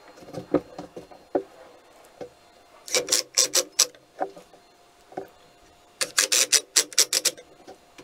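Hand-held pine boards knocking lightly as a side panel is fitted to a birdhouse, then two quick runs of sharp rubbing strokes across the wood, each lasting about a second.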